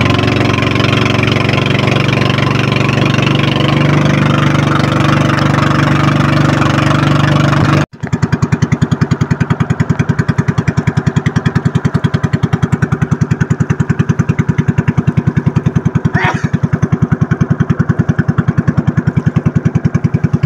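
Small fishing boat's engine running under way, a steady drone that breaks off abruptly about eight seconds in and resumes as a fast, even chugging throb. A brief high chirp sounds near the end.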